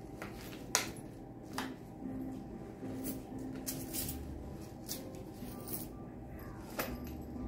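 Small items being handled and packed into a fabric camera bag: scattered light rustles and clicks, the sharpest about a second in.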